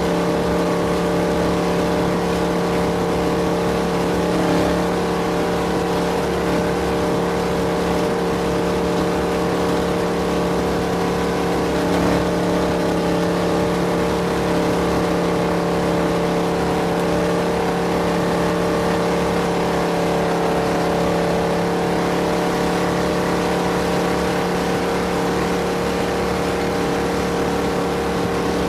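Off-road race vehicle's engine running hard at a steady, unchanging pitch over a constant rush of noise.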